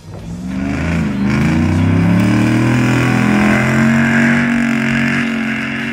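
Pickup truck engine accelerating hard, its pitch climbing over the first couple of seconds and then holding high and fairly steady as it pulls along the dirt track.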